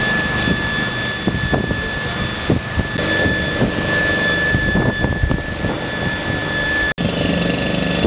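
Steady drone of small engine-driven machinery with a thin high-pitched whine, which cuts off about a second before the end.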